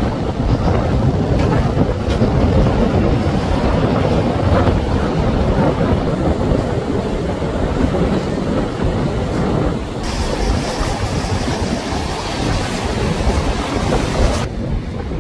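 Wind buffeting the microphone over breaking ocean surf, a loud, dense rush heaviest in the low end. The sound shifts abruptly about ten seconds in and drops back again near the end.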